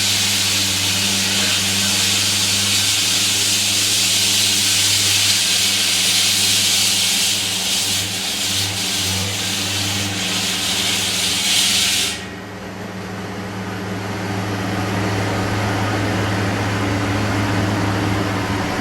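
Big water-cooled diamond-blade concrete saw cutting the road surface: a steady engine note under a loud hissing grind from the blade. About two-thirds of the way through the cutting hiss cuts off suddenly and the saw's engine keeps running on its own, its level slowly rising again.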